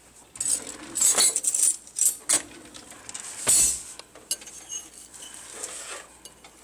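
Cutlery and dishes clinking and knocking in a kitchen: several sharp clinks in the first two seconds, a louder knock about three and a half seconds in, then lighter clatter.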